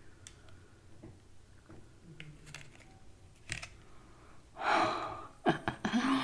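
Faint clicks and handling noises as a chicken sandwich is sauced, with a short breathy hiss about four and a half seconds in and a few sharper clicks just after.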